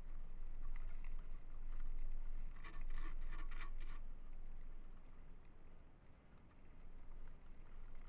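Blizzard wind buffeting a trail camera's microphone, a steady low rumble that dips about six seconds in, with a short patch of crisp crackling about two and a half seconds in lasting just over a second.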